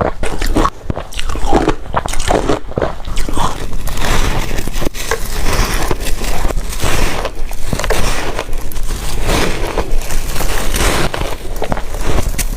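Ice being bitten and chewed, a loud, dense run of irregular crunches and cracks.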